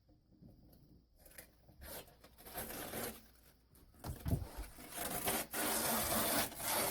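Protective plastic film being peeled off new window glass, a rough rasping, tearing noise that starts about two seconds in and grows louder through the second half.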